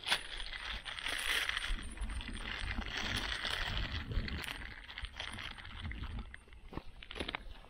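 Thin plastic bag crinkling and rustling while it is handled with live crabs inside, with a sharp click at the very start and a few scattered clicks later.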